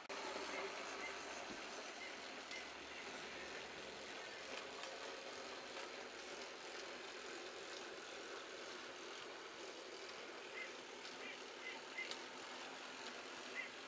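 Model diesel locomotive and freight wagons running along the layout track, a steady rolling noise. A few faint short high chirps come in twice, near the start and again near the end.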